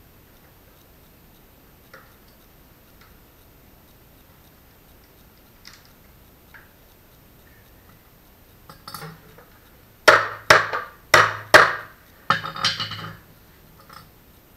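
Four sharp knocks about half a second apart, then a brief rattling clatter, amid a few faint scattered ticks: workshop tool noise while a boat's rudder box is being rebuilt.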